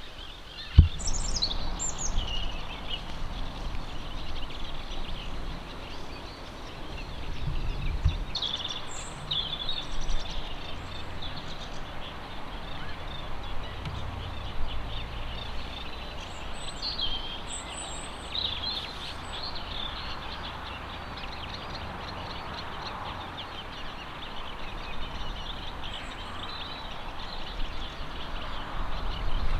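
Small birds giving short, high chirping calls in scattered bursts over a steady low rumble of outdoor background noise, with a single short bump about a second in.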